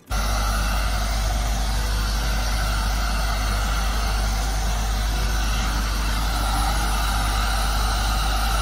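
Electric heat gun running steadily, its fan blowing hot air onto a plastic car bumper, with a constant low hum under the rush of air.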